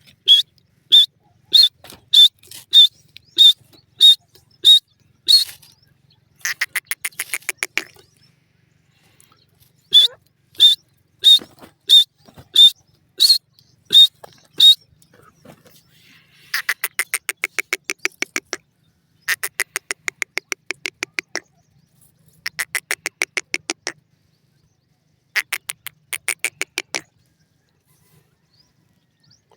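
Grey francolin (teetar) calling: runs of loud, sharp, high notes repeated roughly every half second, alternating with fast rattling series of clicks that each last one to two seconds.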